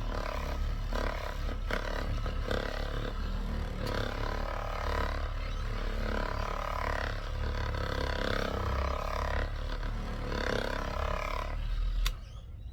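Power buffer running with its pad against a plastic headlight lens, polishing out the yellowed, cloudy oxidation. The sound rises and falls a little as the pad is worked around, then cuts off suddenly near the end.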